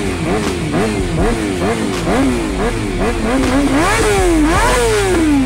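Suzuki GSX-R 600 K9 inline-four engine revved repeatedly while the bike stands still: quick throttle blips, about two or three a second, each a rising then falling pitch. Two longer, higher revs come near the end.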